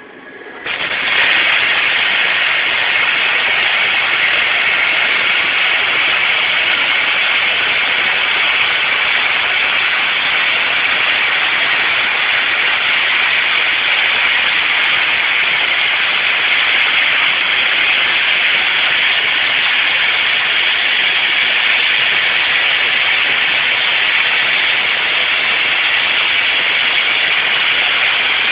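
Motoman robot welding torches strike their arcs about a second in, then a loud, steady welding-arc hiss runs on without a break.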